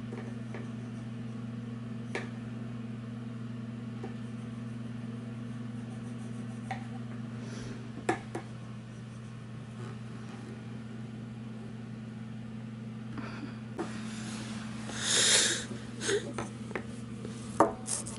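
Steady low mechanical hum of a room appliance, with a few faint light taps and a short rustle about fifteen seconds in.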